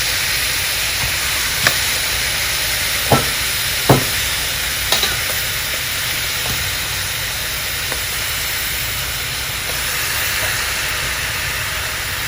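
Pork spare ribs searing in a hot brazier pan: a steady sizzle, with a few sharp knocks in the first five seconds.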